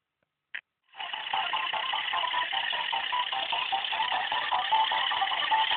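A single click, then about a second in an alarm clock starts ringing loudly: a rapid, rattling ring that keeps going.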